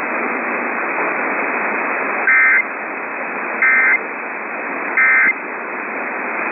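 Emergency Alert System end-of-message data bursts: three short, identical two-tone digital squawks about a second and a half apart, closing the severe thunderstorm warning. A steady radio static hiss runs underneath.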